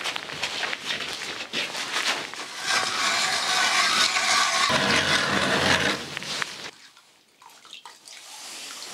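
Hand ice auger boring through lake ice: a steady grinding scrape lasting about four seconds that stops suddenly. Before it, crunching snow and rustling clothing.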